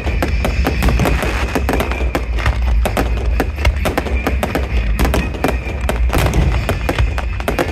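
Fireworks going off in quick succession: many sharp bangs and crackles close together over a steady low rumble.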